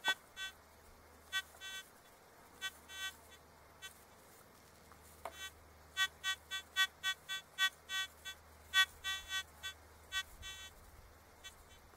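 Metal detector sounding short, repeated beeps as its search coil is swept over the ground, coming thick and fast in the second half as it picks up a target, which the operator cannot yet tell from a hot rock.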